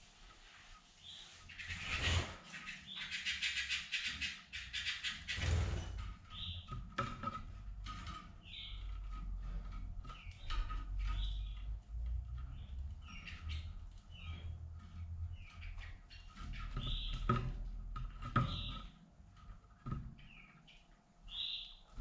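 Red mosaic canaries in a cage giving short, scattered chirps, with a few seconds of rapid rustling about two seconds in.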